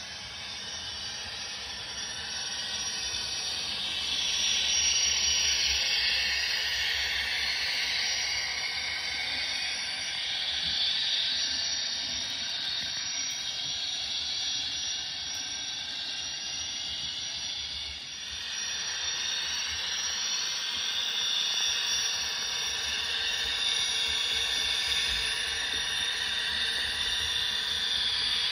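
Sound decoder in an HO scale model of a Union Pacific GTEL 8500 hp gas turbine locomotive, playing the turbine's steady high hiss through the model's speaker as the train runs by. The hiss swells and eases, with a brief dip about two-thirds of the way through.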